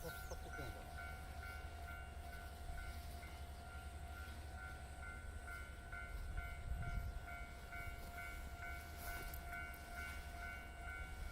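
Railway level-crossing alarm ringing, a repeating ding of about three strokes a second, over a low rumble.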